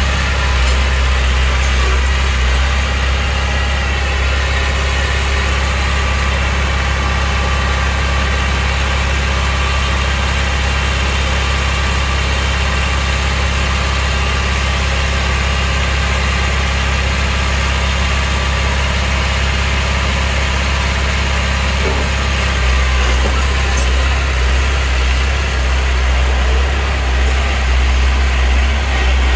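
Diesel engine of heavy earthmoving machinery running steadily with a deep low hum; about two-thirds of the way through the low rumble turns louder and uneven.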